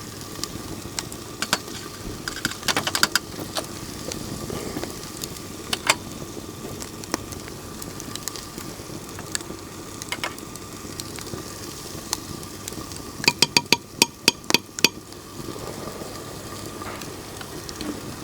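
Onions, garlic, ginger and chillies sizzling in oil in a clay pot while spoonfuls of spice are added. A spoon gives scattered sharp clicks against the pot, with a quick run of about seven taps about two-thirds of the way in.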